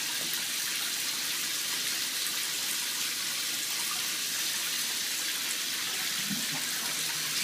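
Steady hiss of water running into a bathtub.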